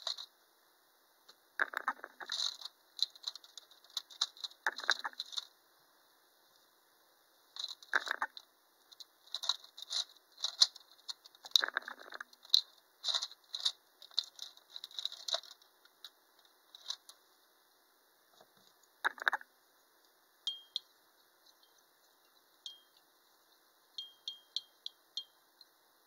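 Paint being stirred in a small glass jar, the stirring stick clinking against the glass in quick irregular runs with pauses, and a few louder knocks of things set down on the table.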